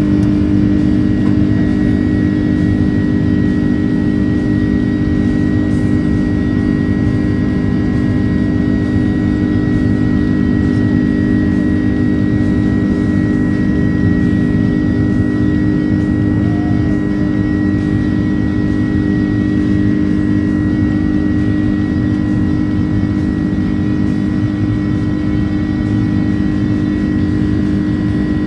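Jet airliner's engines at takeoff thrust heard from inside the cabin during the takeoff roll and climb-out: a loud, steady drone with a low hum and a thin high whine.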